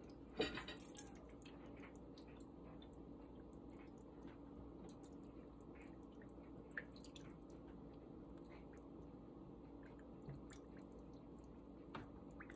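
Chicken broth poured from a carton into canning jars of raw chicken: faint trickling and dripping, with a brief louder splash about half a second in, over a faint steady hum.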